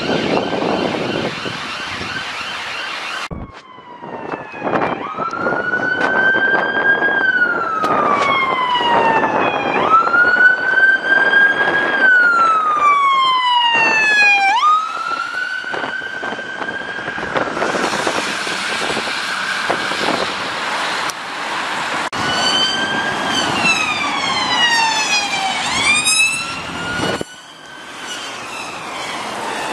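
UK emergency vehicle sirens: a police car's siren for the first few seconds, then after a cut an ambulance siren wailing in slow sweeps, each climbing quickly and falling away over about four seconds. Near the end the sweeps come faster for a few seconds before another cut.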